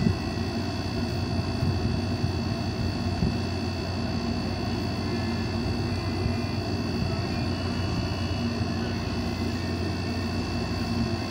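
A steady machine drone with a low hum and a faint high whine, running evenly throughout.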